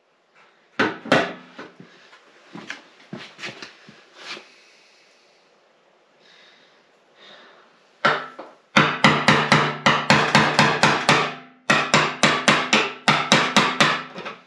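Hammer tapping a steel lock ring around the fuel pump and sending unit in a new steel fuel tank to lock it down. A few scattered taps come first, then two quick runs of sharp metallic strikes at about four a second, with the tank ringing under them. This is the lock ring that came with the pump, too small to go under the tabs all the way.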